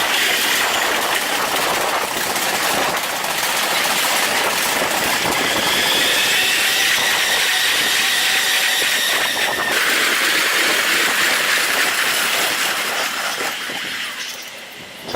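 Train running on the rails: a loud, steady rushing noise with a high hiss. It changes abruptly about ten seconds in, then dies away over the last couple of seconds.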